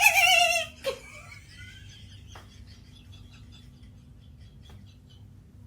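A person making a vocal sound effect: a loud, high, wavering cry that falls in pitch and stops about a second in. After it there are only a few faint ticks.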